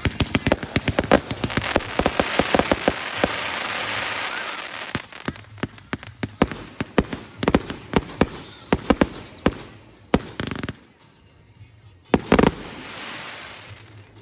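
A firework going off: a rapid series of sharp bangs and crackling for about ten seconds, then a lull, and one more loud burst followed by a fizzing hiss near the end.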